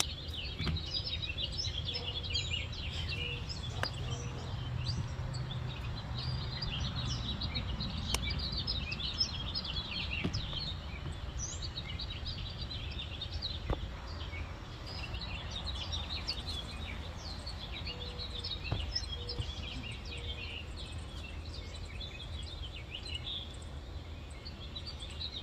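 Outdoor ambience of many birds chirping over a steady low rumble, with a few sharp clicks.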